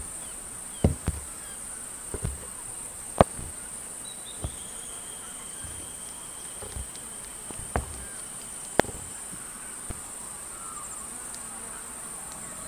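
Night ambience of steady, high-pitched insect chirring, broken by a handful of sharp, irregularly spaced clicks and knocks, the loudest about three seconds in.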